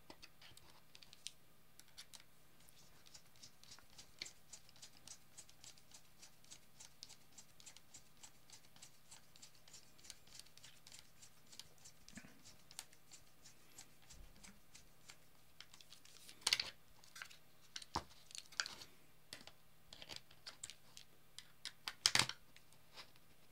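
Small screwdriver turning machine screws into the corners of a clear acrylic case: a long run of faint, quick clicks and scrapes, with a few louder clicks about two-thirds of the way through and near the end.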